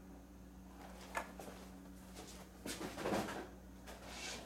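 Soft handling noises from a carded action figure: its cardboard backing and plastic blister rustling and tapping as it is turned over and taken away, with a small click about a second in and a louder rustle around three seconds in. A steady low hum sits under it.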